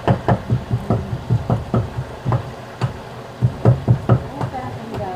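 A rapid, uneven run of dull knocks, about three to four a second.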